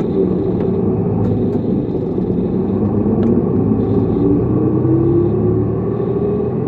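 City bus engine and drivetrain running under way, heard from inside the cabin: a steady drone whose pitch rises a little about halfway through as the bus picks up speed.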